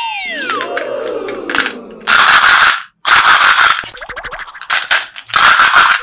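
Small plastic balls rattling in a clear plastic cup as it is shaken, in three loud bursts with scattered clicks between them. A falling whistle-like tone fades out at the start.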